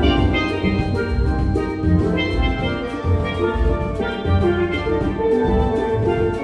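Steel band playing an up-tempo piece: steel pans carry the melody and chords over bass pans and a drum kit keeping a steady beat.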